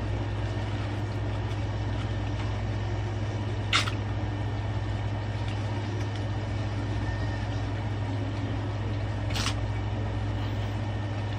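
Steady low mechanical hum with a faint hiss, broken by two brief sharp clicks about four seconds in and again after nine seconds.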